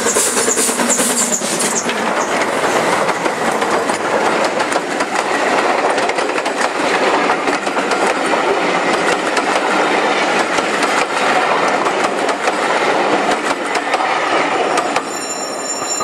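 GWR King class 4-6-0 steam locomotive 6024 passing, its exhaust beats audible for the first couple of seconds, then a long rake of coaches rolling by with a steady clickety-clack of wheels over rail joints. The noise drops away near the end as the last coach passes, with a brief high squeal.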